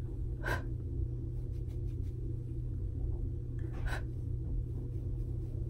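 Faint handling noises from a makeup brush and makeup items over a steady low room hum, with two short soft clicks, one about half a second in and one about four seconds in.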